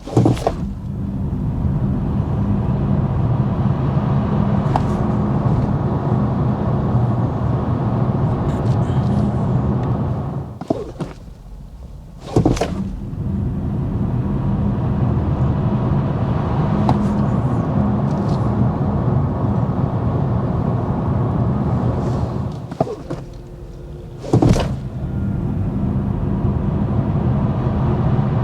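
Steady road and tyre noise with a low hum inside the cabin of a moving BMW i5 M60 electric car. It comes in three long stretches, each broken by a brief quieter gap that ends in a knock.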